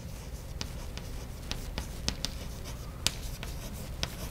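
Chalk writing on a blackboard: several irregularly spaced sharp taps as the chalk strikes the board while letters are written.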